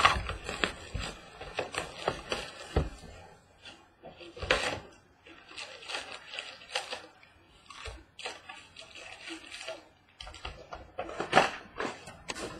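Handling noise from opening a sealed trading card box: irregular rustling and crinkling of wrapper and cardboard, with scattered taps and clicks.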